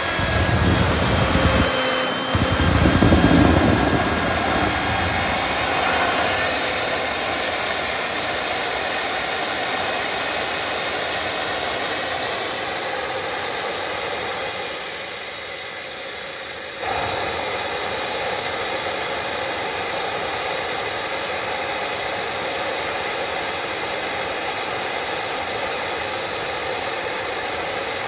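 Homemade turbocharger gas turbine spooling up as an electric blower spins its compressor. Its whine rises steeply over the first five seconds over a heavy rumble, then it runs steadily with a loud jet-like rush. About fifteen seconds in the level sags a little, then jumps back up suddenly about seventeen seconds in.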